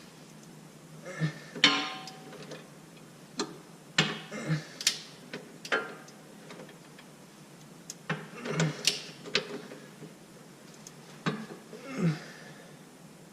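A 1/2-inch drive ratchet torque wrench and socket on transmission mount bolts: scattered bursts of ratcheting clicks and metal clinks, a few strokes at a time, with pauses between.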